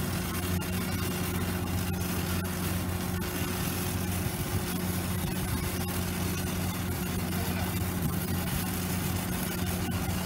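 Lincoln Electric Frontier 400X Pipe engine-driven welder running steadily under welding load, with the fine crackle of a stick-welding arc laying a root pass on steel pipe.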